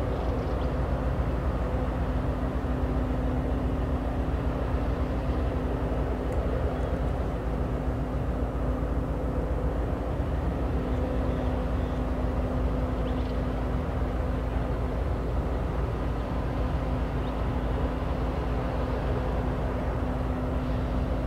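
Union Pacific diesel locomotives running steadily, a constant low engine drone with a steady hum and no change in pitch.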